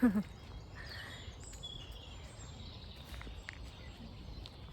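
Birds chirping faintly in short scattered calls over a low, steady outdoor rumble.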